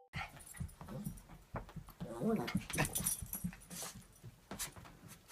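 A dog's faint vocal sounds, with short cries that rise and fall in pitch about two to three seconds in, among scattered soft knocks.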